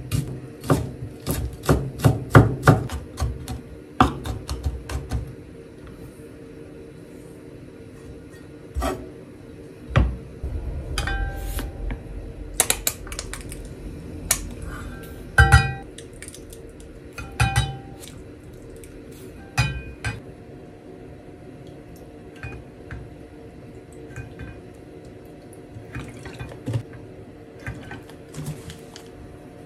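Kitchen knife chopping a Japanese long green onion on a wooden cutting board, quick chops at about three to four a second for the first five seconds. Then scattered clinks that ring briefly, from a small stainless-steel measuring cup as ketchup is squeezed into it from a squeeze bottle and stirred with a wooden spoon, with a few softer knocks near the end. A low steady hum runs underneath.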